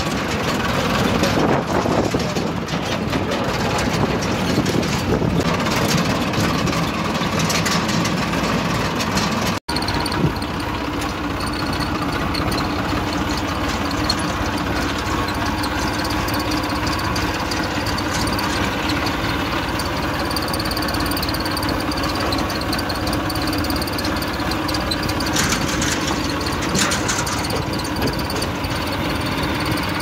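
Farm tractor's diesel engine running steadily, heard from on board the tractor. The sound drops out for an instant about ten seconds in.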